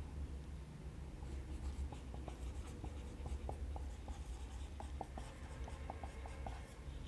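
Marker pen writing, a run of short scratching strokes and small squeaks that starts about a second in and stops near the end, over a steady low hum.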